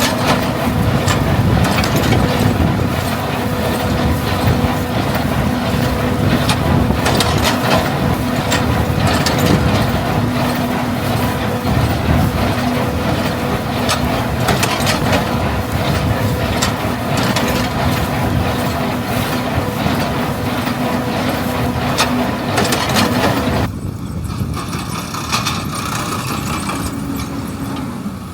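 Farm machinery working in the field: a tractor engine running steadily under a clatter of sharp mechanical clicks and knocks. About 24 seconds in the clatter falls away and the sound turns quieter and duller.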